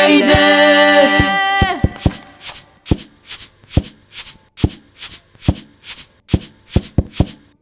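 Unaccompanied voices hold a final chord that cuts off about a second and a half in. A run of sharp percussive knocks follows, a little over two a second.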